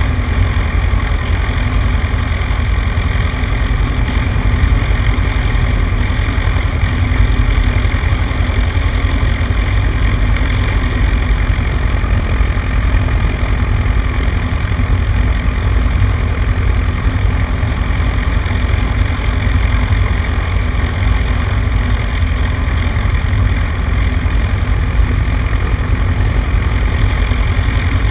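Cessna 150's four-cylinder engine and propeller running steadily, with heavy wind rumble on the wing-mounted camera's microphone.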